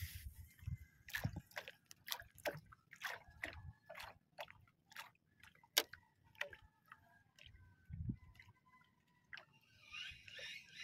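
Small water sounds at the hull of an outrigger boat resting on calm sea: light wet slaps and drips, about two or three short ticks a second, with a faint steady tone behind them.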